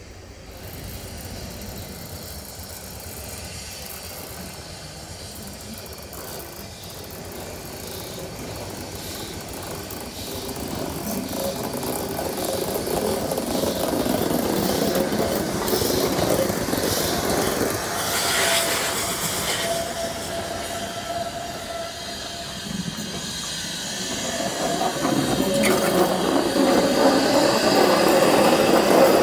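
Narrow-gauge steam locomotive No. 704 arriving at slow speed and passing close, growing louder, with steam hissing and a thin squeal for a few seconds past the middle.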